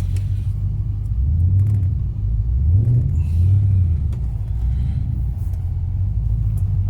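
Ford AU Falcon XR8's V8 engine idling with a low, steady rumble. Its revs rise and fall briefly between about one and four seconds in.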